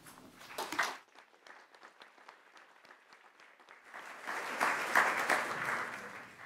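Audience applauding: scattered claps at first, swelling to full applause about four seconds in and fading near the end.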